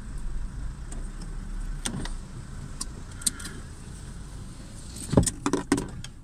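Car rolling slowly as it pulls up, with a low rumble that fades out about halfway through as the car comes to a stop. A few light clicks follow, then a short run of louder clicks and knocks near the end.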